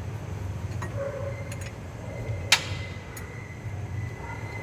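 Scattered sharp metallic clicks and clinks from repair work on the truck. The loudest is a single clink about two and a half seconds in, which leaves a faint ring. A steady low rumble runs underneath.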